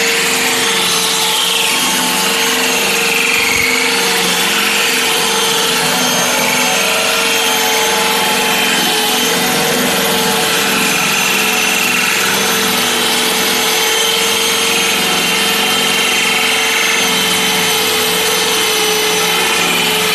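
Electric core drill boring a hole through a marble countertop, its core bit grinding into the stone with a steady motor hum under loud, even grinding noise.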